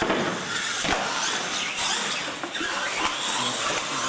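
Radio-controlled monster trucks racing: their electric motors whine, rising and falling in pitch as the throttle is worked, with one knock about a second in.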